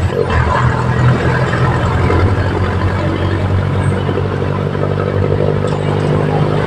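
Jeepney's diesel engine running steadily while the vehicle is under way, heard from on board, with road noise from the passing traffic.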